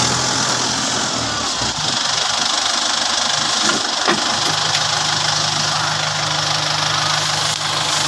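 Tractor engine running, with a couple of short knocks around four seconds in, then settling into a steady idle for the rest.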